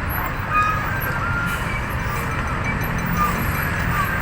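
A large vehicle's engine running steadily with road noise, and a few short, faint high-pitched tones scattered through it.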